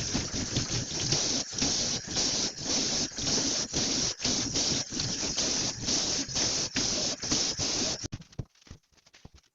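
Tap water running and splashing, stopping about eight seconds in.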